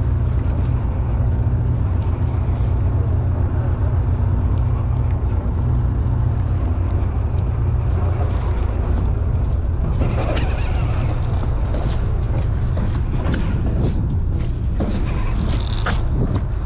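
Steady low drone of the boat's engine mixed with wind noise on the microphone, while a popper is being reeled in. Scattered clicks come in during the second half.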